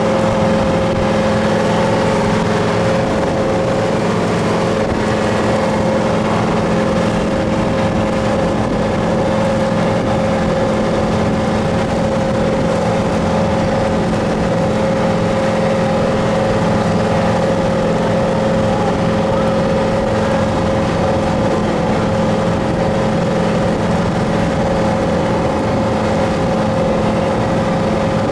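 Motorboat engine running at a steady pitch while under way, over a constant rush of noise.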